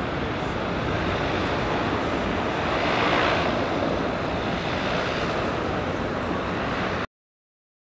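Steady outdoor rumble and hiss of harbour ambience, swelling briefly about three seconds in, then cutting off abruptly near the end.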